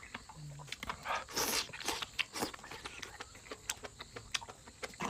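A person chewing and biting chicken, with a scatter of short mouth clicks and a louder noisy stretch about one and a half seconds in.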